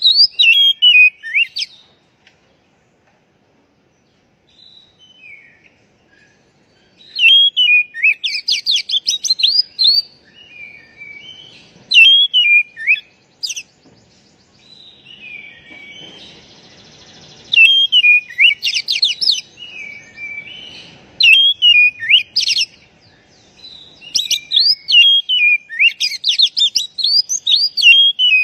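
Oriental magpie-robin (kacer) singing in repeated bursts of quick rising and falling whistled notes, with pauses of a few seconds between bursts.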